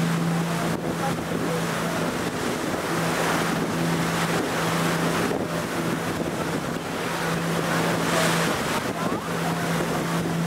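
A tour boat's engine running with a steady low hum, mixed with wind buffeting the microphone and the sea washing past.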